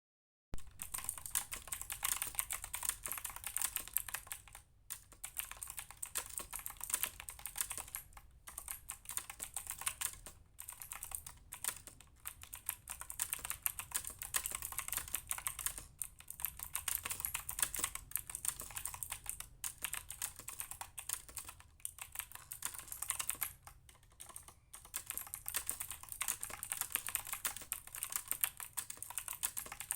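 Continuous fast typing on a MoFii LUSC mechanical keyboard: a dense run of key clicks, broken by brief pauses every few seconds.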